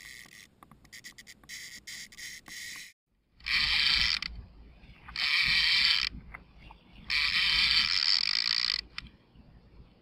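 Fishing reel's drag buzzing in three runs of about one to two seconds each as a hooked fish pulls line off against the bent rod, with fainter clicking from the reel before the first run.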